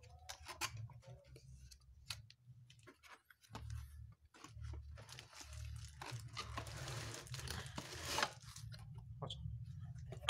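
Packaging being opened by hand and a camping cooking set pulled out: a few scattered taps and clicks, then from about five seconds in several seconds of plastic crinkling and tearing, ending with a sharp knock.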